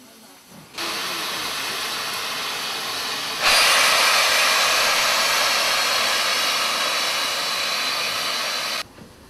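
Steam locomotive venting steam, here BR Standard Class 7 'Britannia' No. 70000 with steam pouring round its front end. It is a loud, steady hiss that starts suddenly about a second in, gets louder about three and a half seconds in, and cuts off just before the end.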